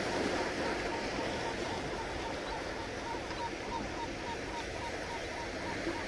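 Small waves on a calm sea washing onto the beach, a steady hiss of surf. A faint, short high chirp repeats about four times a second through it.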